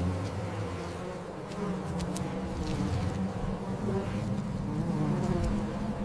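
Steady low buzzing of many insect wings, several drones overlapping, from hornets and honeybees massed together, with a few faint clicks.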